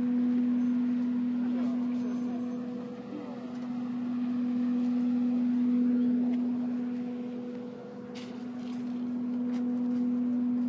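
A steady low droning tone held at one pitch, with a fainter overtone above it, growing louder and softer twice without stopping.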